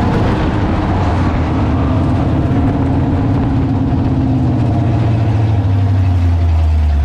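Dirt-track race car's engine heard from inside the cockpit, running at low revs with a steady low rumble that edges up slightly after the middle.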